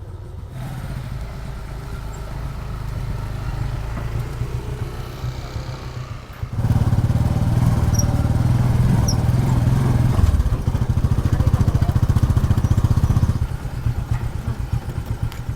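Motorcycle engine of a tricycle (motorcycle with sidecar) running under way, heard riding aboard. About six seconds in it gets clearly louder for some seven seconds, then drops back near the end.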